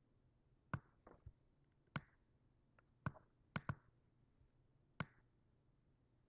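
Computer mouse buttons clicking: about eight sharp, separate clicks at uneven intervals, two of them in quick succession around the middle.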